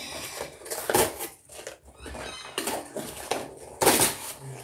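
Toy packaging being handled and opened: rustling in several short bursts, with quieter gaps between.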